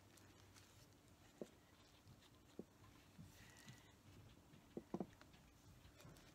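Near silence with a few faint soft taps: acrylic paint dripping off gloved fingers onto a plastic garbage bag.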